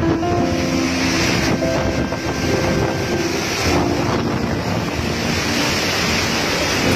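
Typhoon wind and heavy rain, a loud steady rushing that buffets the microphone. Soft instrumental music with held notes plays underneath.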